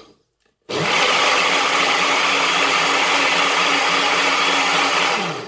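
Countertop blender blending soaked rice and water: it cuts off at the start, then under a second in switches back on, spins up with a rising pitch, runs steadily, and winds down with a falling pitch to a stop near the end.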